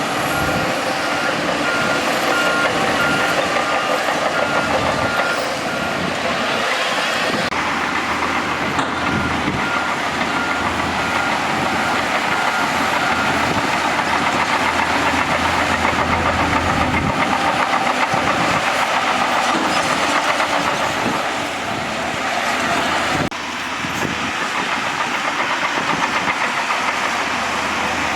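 Bulldozer working, its diesel engine running steadily under load. A reversing alarm beeps repeatedly during the first six seconds and again from about ten to thirteen seconds in.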